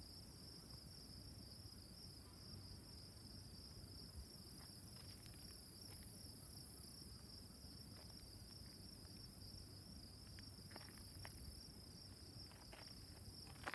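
Faint, steady high-pitched trill of crickets over near silence, with a few faint clicks near the end.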